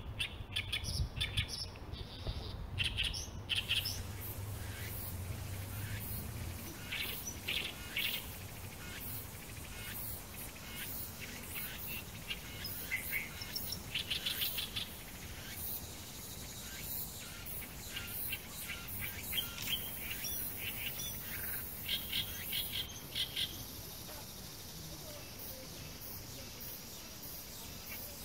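Small birds chirping repeatedly over a background of insects, with a high steady insect buzz growing stronger for the last few seconds.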